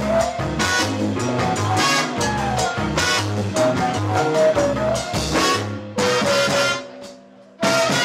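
Live horn-led band with Latin percussion playing: two trumpets, baritone saxophone and flute over drums, congas, timbales, bass and organ. About six seconds in, an accented band hit dies away into a short break, and the full band comes back in just before the end.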